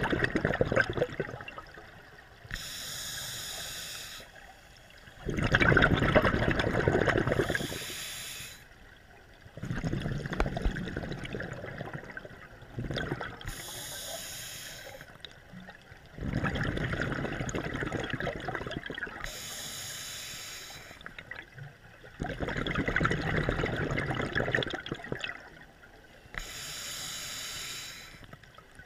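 Scuba diver breathing through a regulator underwater: five breath cycles, each a short hissing inhale followed by a longer, louder gush of exhaled bubbles, about one breath every six seconds.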